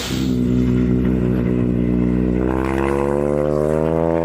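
Nembo 32 motorcycle's inverted engine running, steady at first, then climbing slowly in pitch through the second half as the revs rise.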